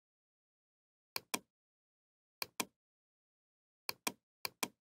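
Computer mouse clicking: four pairs of sharp clicks about a second apart, the two clicks in each pair about a fifth of a second apart.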